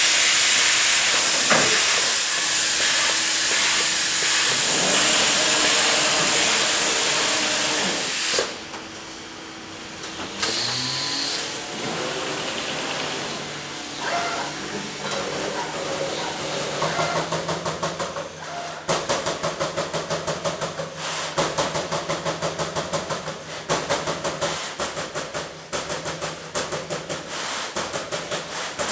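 Trumpf TruMatic 3000R turret punch press punching holes in a steel sheet: a fast, even run of sharp punch strokes, about three to four a second, over the hum of the machine. This starts a little past halfway through. Before it, a loud steady hiss.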